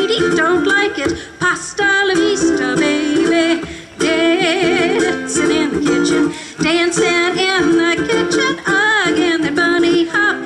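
Live song: a ukulele strummed steadily under a woman's singing voice, some held notes wavering.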